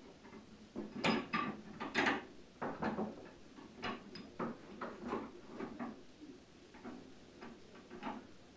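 Irregular metal clicks and clanks as the mechanism of a homemade motorcycle lift is worked by hand to raise it, with two louder knocks about one and two seconds in.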